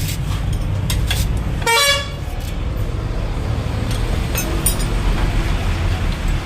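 A short vehicle horn honk about two seconds in, over a steady low rumble of vehicle traffic, with a few sharp metallic clicks.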